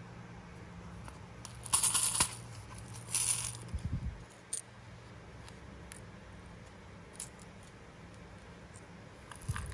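Small plastic googly eyes rattling in a clear plastic cup as it is shaken, in two short bursts about two and three seconds in. A low knock follows, then a few light clicks and a brief rattle near the end.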